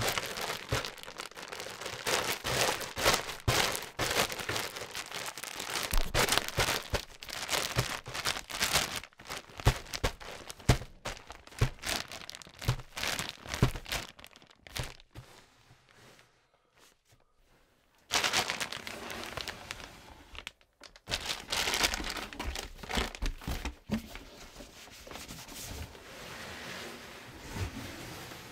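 Plastic mushroom grow bag crinkling and rustling in irregular bursts as it is handled. A lull of a few seconds past the middle, then more rustling.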